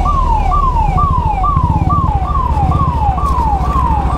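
Ambulance siren wailing in a fast repeating cycle, each sweep jumping up in pitch and sliding back down, about two a second. The low running of the motorcycle's engine sits underneath.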